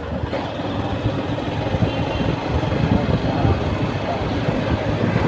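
The engine of a two-wheeler running as it rides slowly along a street, a steady low rumble mixed with road and traffic noise.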